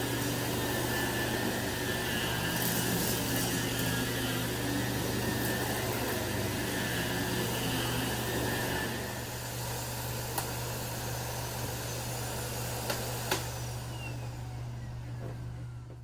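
Miele C2 canister vacuum running with its electric power head on carpet: a steady motor hum and brush noise. It gets somewhat quieter about nine seconds in, with a few light clicks, then fades out at the end.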